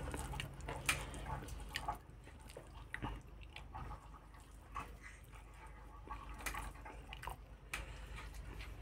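Eating rice by hand close to the microphone: fingers squishing and mixing rice on a metal plate, with soft wet smacks of chewing. Faint, with scattered short clicks spread unevenly through it.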